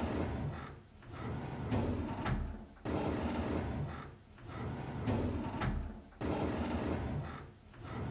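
A drawer sliding open and shut over and over, each slide a rumbling scrape lasting a second or two, several starting with a sudden knock, in a loop that repeats every few seconds.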